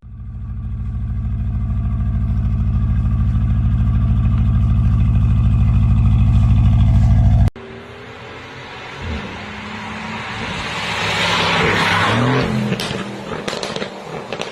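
Performance car engine held at a steady note, heavy and deep, growing louder until it cuts off abruptly halfway through. A second car then rises in a rushing engine and exhaust noise that swells and fades, with several sharp cracks near the end.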